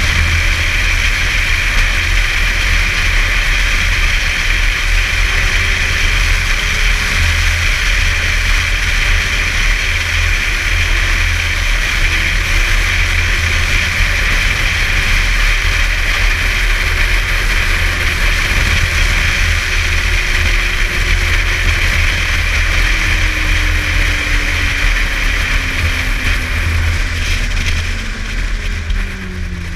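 Snowmobile engine running steadily as it travels along a groomed trail, with a continuous low rumble; near the end the engine pitch falls and the sound eases as it slows.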